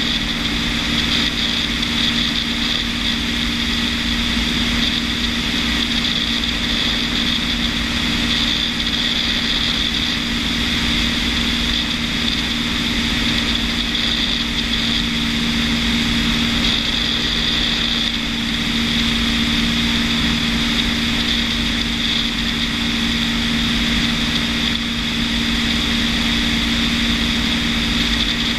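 Piston-engine propeller aircraft in steady level flight: engine and propeller running at a constant pitch, with wind rushing over the wing-mounted camera.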